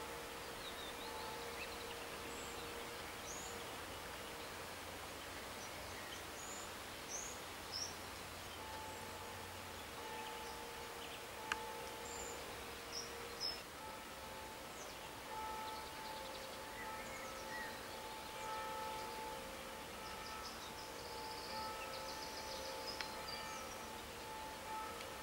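Countryside ambience: scattered short bird chirps over a steady background hiss, with faint droning tones that come and go and a single sharp click about halfway through.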